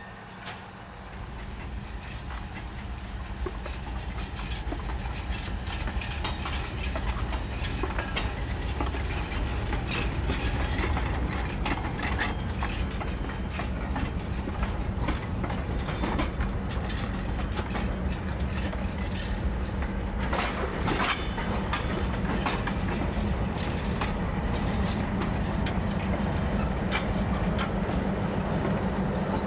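TU7 narrow-gauge diesel locomotive under way, heard from the cab: a steady diesel engine drone with the clicking and clatter of wheels running over the track, building up over the first few seconds and then holding steady.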